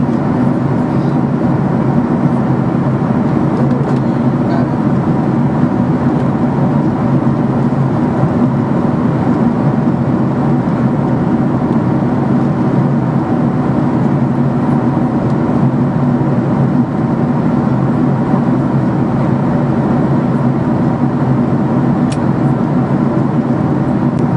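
Steady cabin noise of a jet airliner in flight: an even, unbroken rush of engine and airflow noise with a low steady hum.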